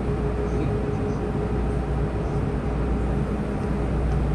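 Inside an MTR M-Train metro car running along the line: a steady low rumble of wheels and car body, with a constant hum from the train's equipment that holds one pitch.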